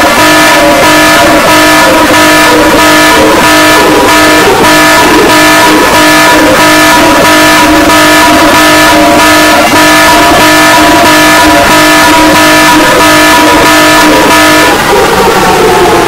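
Loud, distorted emergency alert system alarm: a steady chord of several held tones under a harsh hiss that pulses about twice a second, cutting off abruptly at the end.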